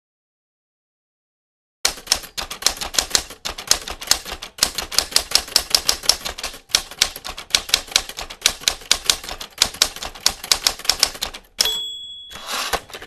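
Typewriter keys clacking in quick runs of strokes, typing out on-screen title text, then a single bell ding near the end followed by a short rasp.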